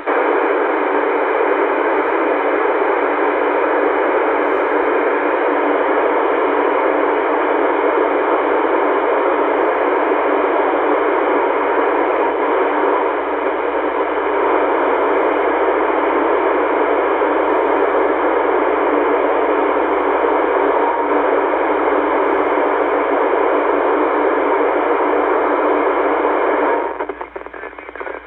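Steady hiss of an FM receiver with no station on frequency: a Yaesu FTdx10 transceiver in FM mode on the 10-metre band, squelch open, being tuned down the band. The hiss drops away about a second before the end.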